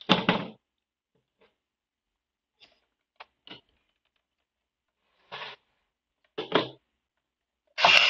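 Small clicks and knocks of pliers and plastic parts being handled at a SodaStream's CO2 valve lever, with a sharper knock at the start and two more knocks a second apart later on. Right at the end a loud hiss of CO2 begins as the carbonation button is pressed down.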